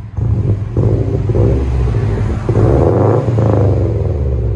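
A 2007 Subaru Legacy GT's 2.5-litre turbocharged flat-four is heard at the tailpipe of a single 2¼-inch exhaust with a Vibrant bottle resonator and double-walled tip. The engine is revved up several times, stepping up just after the start and again about halfway. The tone is clean, not raspy, which the shop credits to the resonator.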